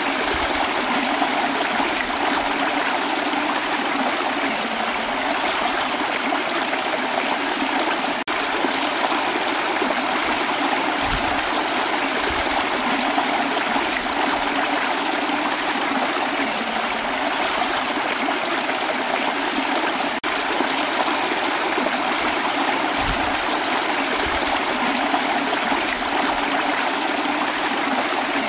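Shallow rocky stream running steadily over stones, a constant rush of water.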